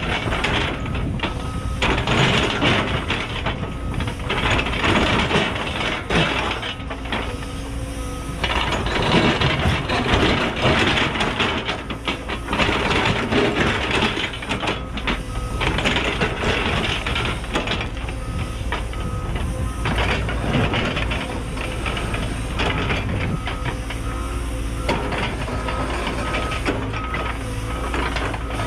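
Cat 314E excavator's diesel engine working hard as its ripper shank tears through extremely hard bedrock, with rock cracking and grinding. An alarm beeps in a steady repeating pattern through parts of it.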